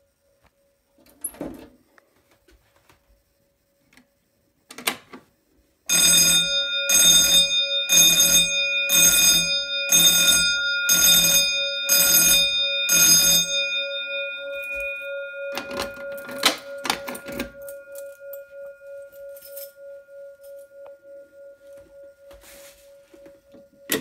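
Wheelock 46T-G6-24 fire alarm bell ringing in eight short bursts about a second apart, the pulsed signal a Simplex 4008 gives in walk test when a device is tripped, then the gong ringing on and slowly dying away. Knocks and clicks from a pull station being handled come before and after.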